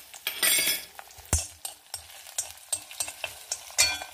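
Peeled garlic cloves sizzling in hot oil in an iron kadai as they roast, with a steel spoon stirring and clinking against the pan. The sizzle swells about half a second in and again near the end, with a sharp clink just past a second in.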